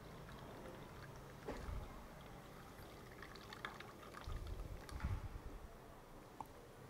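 Faint trickling and dripping of pineapple juice into a glass bowl as the pulp is squeezed by hand through a cloth, with a few soft handling bumps about a second and a half in and again around four to five seconds.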